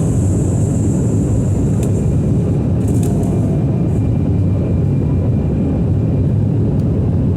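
Embraer 190 cabin noise during the climb after takeoff: its twin GE CF34-10E turbofans and the airflow make a steady, deep rumble. A faint high hiss fades away about halfway through.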